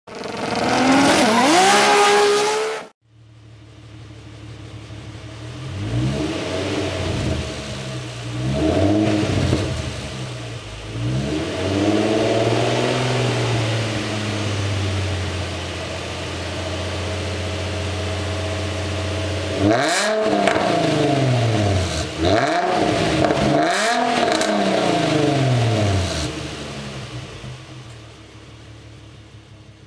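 Nissan 350Z's 3.5-litre V6 through a Buddy Club 2.5-inch cat-back exhaust, revved on the spot from idle. It is blipped a few times with idling between, then given a run of quick sharp revs about two-thirds of the way through before the sound fades out.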